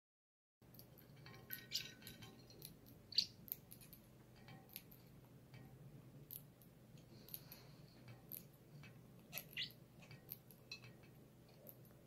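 Small parrots pecking seeds off a hard tabletop: faint, irregular clicks and taps, with a few short, high chirps.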